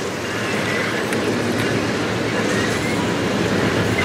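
Railway tank cars of a freight train rolling slowly past on the rails: a steady rumble of wheels on track, with a few faint, brief high wheel squeals.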